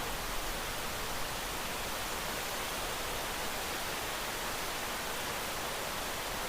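Rain sound effect: a steady, even hiss of falling rain with no single drops standing out.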